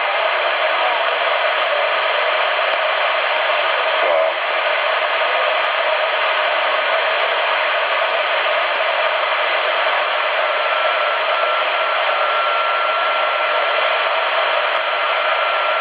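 CRT SS 9900 CB radio receiving 27.555 MHz in upper sideband, its speaker giving out steady band hiss with no station coming through clearly. A steady whistle joins about ten seconds in.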